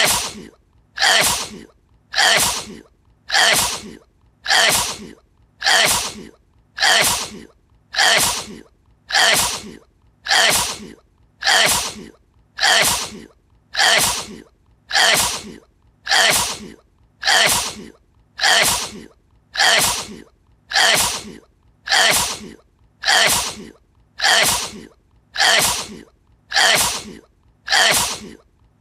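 One person's sneeze edited into a loop, so the same short, sharp sneeze repeats over and over at a perfectly even pace of a little more than one a second.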